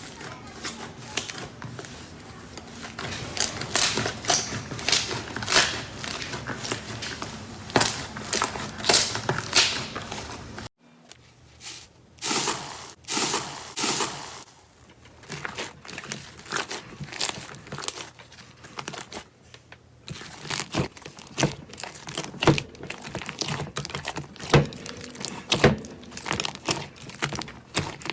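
Slime being squeezed and pressed by hand, close to the microphone: crinkly crackling with many small sharp clicks and pops. The texture changes abruptly about a third and about two thirds of the way through, as one clip gives way to another.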